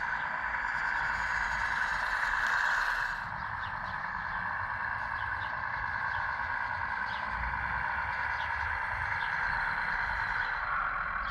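Hydraulic pump of a radio-controlled model excavator running with a steady whine, a little louder in the first three seconds, with faint ticks over it.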